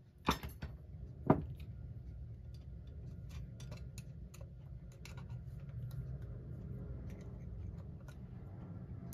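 Small screwdriver prying at a clock's bezel retaining ring: two sharp clicks about a second apart near the start, the second the loudest, then faint irregular ticks and scrapes of tool on the ring over a low steady hum.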